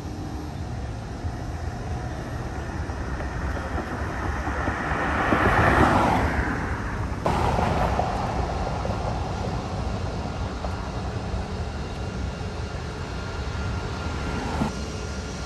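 Road traffic: a vehicle passes close by, its noise swelling to a peak about six seconds in, and the sound breaks off abruptly a little later into a steadier hum of city traffic.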